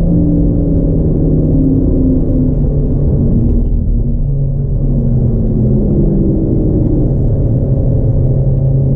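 Renault Megane RS Trophy's turbocharged four-cylinder engine under load on track, heard from inside the car over heavy road rumble. Its pitch drops right at the start, then wavers up and down with the throttle and gears.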